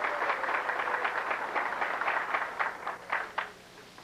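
Audience applauding, thinning out to a few last scattered claps about three and a half seconds in.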